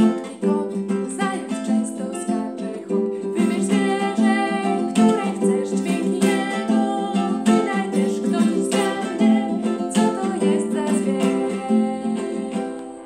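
Acoustic guitar strummed in a steady rhythm while a woman sings a children's song.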